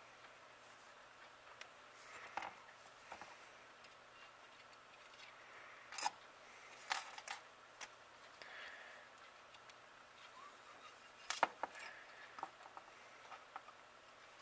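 Faint, scattered clicks and light metallic clinks of small parts handled by hand: brush springs and brush holders being worked as carbon brushes and their leads are fitted into a Delco Remy generator's aluminium end frame.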